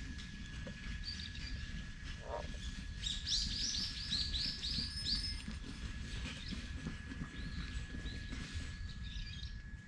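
Small songbird outdoors giving a quick run of about eight chirps about three seconds in, and a fainter few near the end, over a steady thin high tone and a low outdoor rumble.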